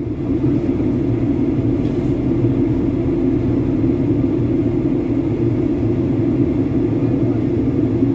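Airliner passenger-cabin noise picked up by a phone: the engines and airflow make a steady, even low drone.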